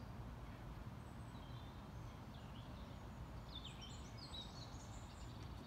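Outdoor ambience: songbirds giving several short, sweeping chirps, most of them in the middle, over a steady low rumble.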